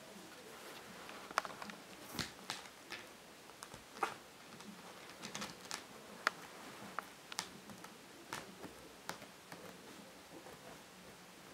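A kitten's claws scrabbling and catching on a fleece blanket and a cardboard toilet-paper tube: a scatter of faint, irregular light clicks and short scratches.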